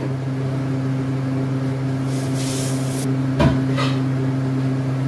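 Steady low mechanical hum, with a brief hiss a little after two seconds and a single knock about three and a half seconds in.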